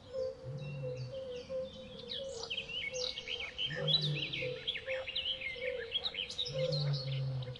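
Background ambience of wild birds chirping and calling together, busiest through the middle, over a steady lower hum that swells a few times.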